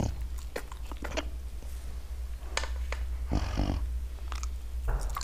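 Snow leopard licking and chewing at meat through wire mesh: a run of short wet clicks and smacks, with a short low sound about three and a half seconds in, over a steady low hum.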